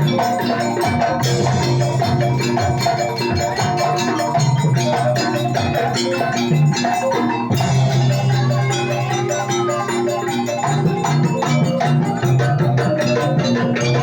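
Javanese gamelan-style music for a Gandrung dance: struck metal mallet instruments and gongs over hand drumming in a steady, busy rhythm.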